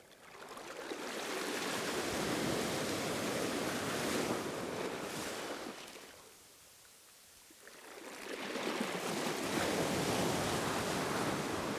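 Small surf waves breaking and washing up the beach in shallow water, two washes each swelling for a few seconds and then fading, with a quieter lull between them.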